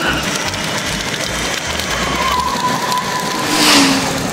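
Power Wheels battery-powered ride-on toy trucks driving along asphalt, their plastic wheels making a steady rolling noise, with a brief louder rush of hiss near the end.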